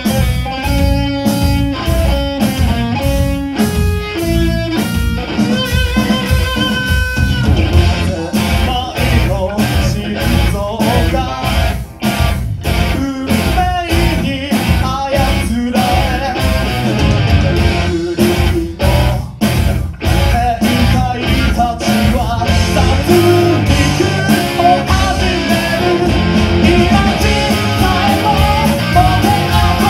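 Rock band playing live, loud and full: electric guitars and a drum kit, with singing. It opens on a picked single-note guitar melody over the drums before the full band and vocal take over, heard from among the audience.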